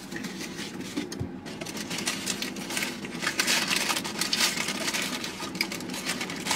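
Paper and cardboard rustling and crinkling as a hand rummages inside a takeout box of chicken wings and fries.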